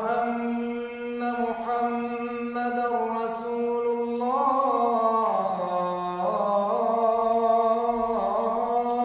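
Islamic call to prayer (adhan) sung by a man: long drawn-out notes with slow melismatic turns and bends in pitch.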